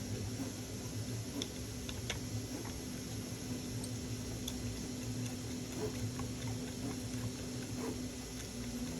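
Faint, scattered light clicks of a small machine screw and 3D-printed plastic parts being handled, over a steady low hum.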